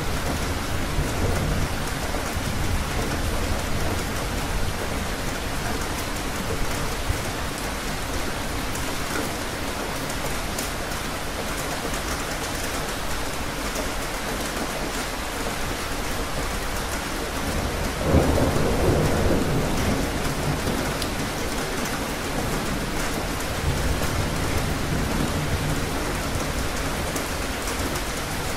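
Steady, heavy rain falling, with low rolling thunder underneath. About two-thirds of the way in, a louder clap of thunder breaks suddenly and rolls away over a couple of seconds.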